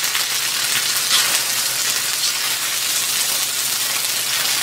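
Stir-fried noodles, chicken and vegetables sizzling in a hot nonstick skillet while being tossed with a silicone spatula: a steady hiss. The burner has just been switched off and the pan is still sizzling on its stored heat.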